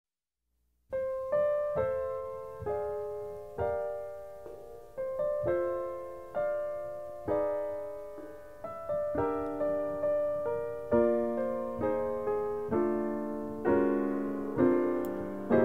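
Background piano music: a slow melody of single struck notes and chords, each dying away, starting about a second in.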